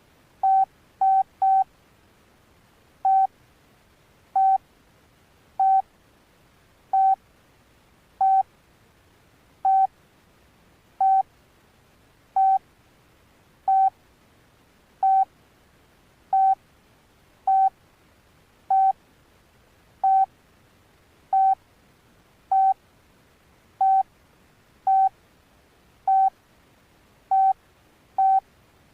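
Alcatel OneTouch Retro 2017B flip phone's key beeps: a short beep of the same pitch at each key press, three in quick succession near the start, then one about every 1.3 seconds, slightly irregular, about two dozen in all.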